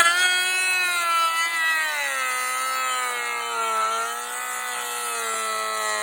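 Kobalt 24V cordless dual-blade planer running at full speed with a steady high whine, planing a 2x4. Its pitch sags and recovers as the blades are pushed into the wood under load, dipping most about two-thirds of the way in.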